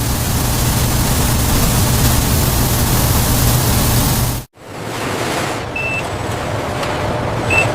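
Steady rushing noise with a low hum beneath it. It cuts out abruptly about four and a half seconds in, then comes back, with two short high beeps near the end.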